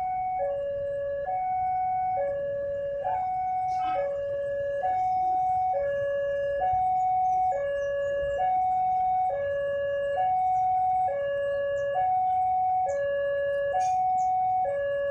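Electronic two-tone warning alarm of a railway level crossing, sounding while the barrier is down for an approaching train. It alternates evenly between a higher and a lower tone, each held just under a second, repeating without a break.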